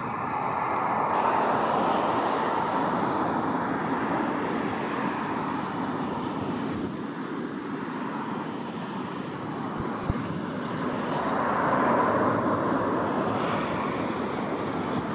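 Jet airliner engines heard as a steady rushing roar, swelling loudest about a second in and again near the end.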